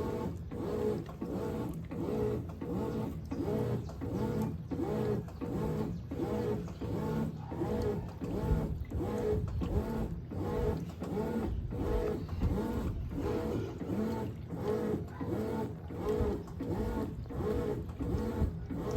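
Brastemp 17 kg washing machine agitating a packed-full load: a rhythmic churning that swings back and forth about twice a second, steady throughout.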